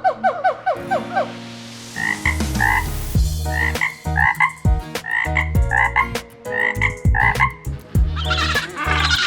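Short animal calls repeated about twice a second over a low steady drone, with a quick run of calls in the first second and a denser burst of calls near the end.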